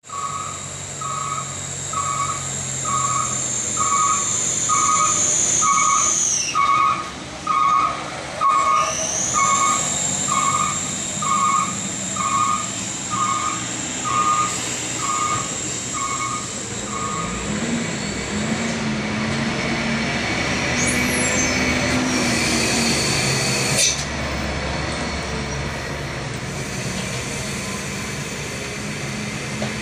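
Diesel engines of sugarcane-laden trucks with trailers approaching and passing close by, the engine drone rising in the second half with a deep rumble as a truck goes past. For the first half, an electronic beep repeats about once a second over a steady high whine.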